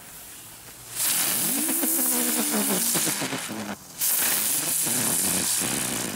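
Two 'dicke Brummer' ground-spinner fireworks going off one after the other. The first starts about a second in with a loud hiss and a humming tone that rises and then falls; after a brief gap the second starts hissing about four seconds in.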